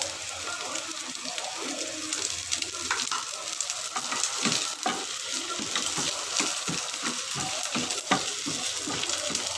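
Sliced ingredients sizzling in hot oil in a non-stick frying pan, stirred and tossed with a wooden spatula. From about four seconds in, the spatula strokes come quickly and regularly, about three a second.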